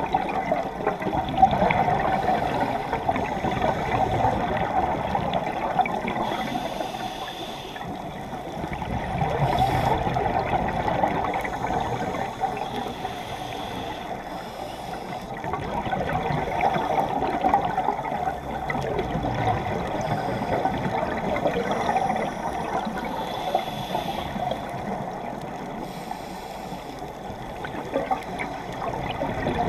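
Scuba regulator breathing and exhaled bubbles heard underwater, a muffled, bubbly rushing that swells and fades in slow cycles several seconds apart.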